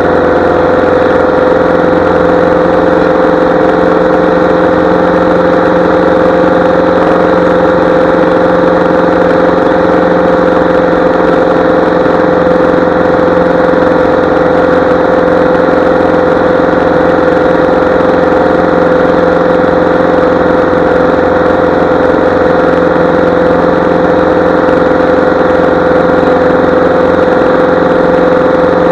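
Light single-engine airplane's piston engine and propeller running loud and steady at a constant power setting.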